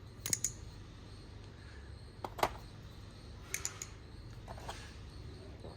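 Scattered sharp metallic clicks and taps from a balisong (butterfly knife) trainer being handled, its handles and latch knocking together, in a few small groups.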